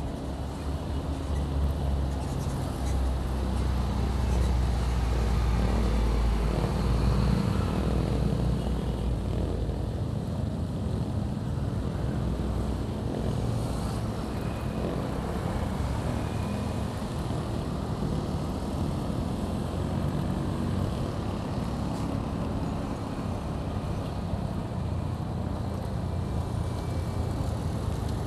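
Motorcycle on the move in road traffic: its engine running under steady wind and road noise, with the low rumble easing about ten seconds in.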